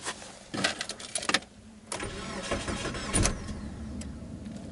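Mitsubishi car engine being started: a few clicks, then the engine cranks and catches about two seconds in and keeps running. It is still misfiring on cylinder 3.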